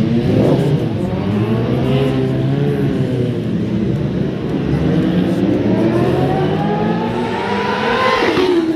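BMW S1000RR superbike's inline-four engine revving up through the gears as it approaches, its pitch climbing in steps. Near the end the pitch drops sharply as the bike passes close by.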